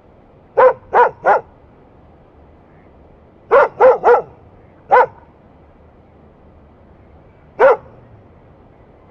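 Dog barking in short bursts: a run of three, another three, then two single barks spaced apart, a territorial warning.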